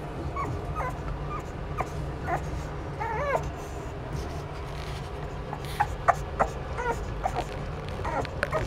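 Boston terrier puppy whimpering: a string of short, high whines and yips, a pause of about two seconds, then sharper, louder yips in the second half. A steady low hum runs underneath.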